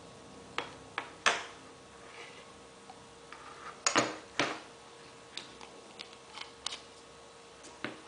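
Irregular sharp clicks and taps of small hard objects: instruments and containers handled while clear acrylic resin is applied to a bruxism splint. About ten of them, the loudest about a second in and about four seconds in.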